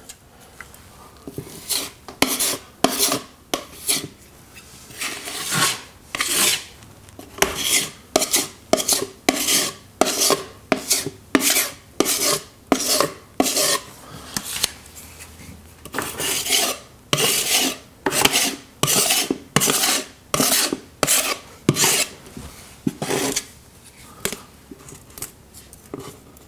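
Steel putty knife scraping spackle across a drywall crack in repeated short strokes, about one or two a second, with a brief lull about halfway through.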